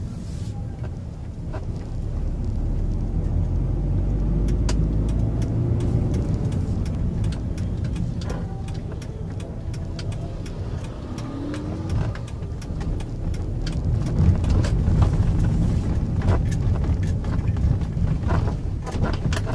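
Car driving: a steady low rumble of road and engine noise, with scattered small clicks and knocks.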